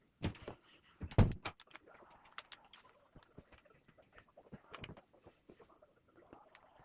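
Scattered knocks and clicks, the loudest a heavy thump about a second in.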